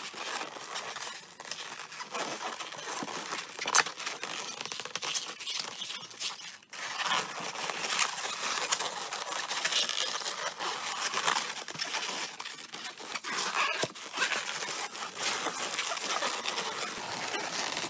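Inflated 260Q latex twisting balloons rubbing and squeaking against each other and against the hands as they are twisted, wrapped and threaded together.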